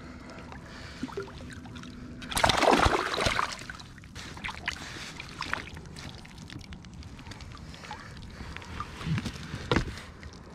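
A small rainbow trout splashing at the surface as it is played in beside a float tube, with one louder burst of splashing about two and a half seconds in. Scattered small splashes and clicks follow as the fish is brought to hand.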